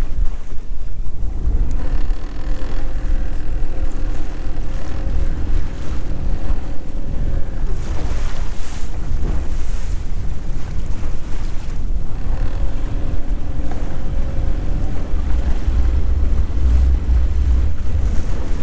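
Heavy wind noise buffeting the microphone on a small boat at sea. A boat engine's steady hum comes through in two stretches of several seconds each as the boat manoeuvres.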